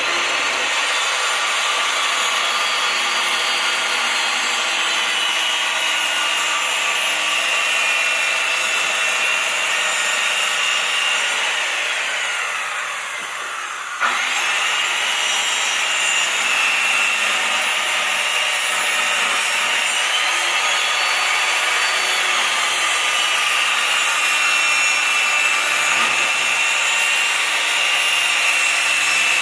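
Makita 7-1/4-inch circular saw ripping a cedar 2x10 lengthwise, its motor and blade whining at full speed. About eleven seconds in the pitch slides down as the blade slows, then the saw starts again abruptly about fourteen seconds in and runs on through the cut with slight rises and dips in pitch.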